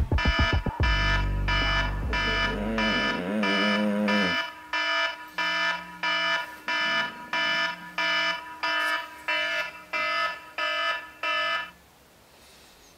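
Electronic alarm beeping rapidly, about three high beeps a second, then cutting off suddenly near the end. Music with a deep bass fades out under it during the first few seconds.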